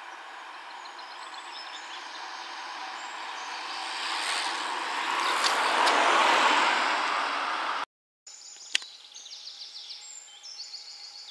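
A car approaching and passing close by, its tyre and engine noise swelling to a peak about six seconds in, then cut off abruptly. After a short gap, birds chirp repeatedly over quiet roadside ambience, with one sharp click.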